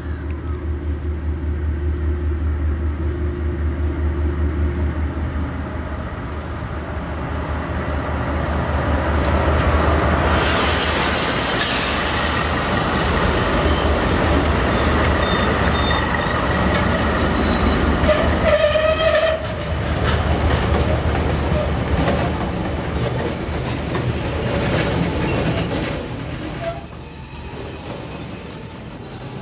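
KiwiRail container freight train running by. A steady low locomotive drone comes first, then wheel and rail noise builds from about ten seconds in. Over roughly the last twelve seconds a high, steady wheel squeal holds.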